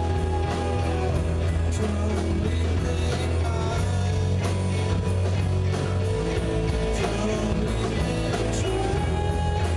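Live rock band playing: electric guitars over bass and drums, with a steady cymbal beat.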